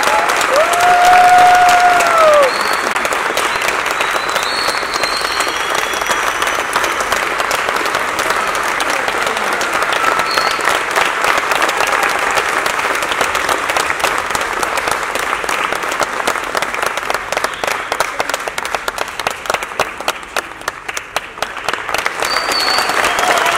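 Theatre audience applauding, many hands clapping steadily, with one voice holding a long high cheer about a second in. The clapping thins out about twenty seconds in, then swells again as the cast bows.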